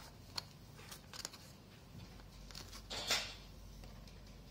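Light plastic clicks and handling noise from a hand-held water hardness meter's casing and battery compartment being worked by hand, with a brief scraping rustle about three seconds in.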